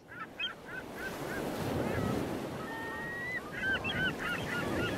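Birds calling: a run of short falling calls at the start, a longer whistled note around the middle, then a busy cluster of calls near the end, over a steady low rushing noise.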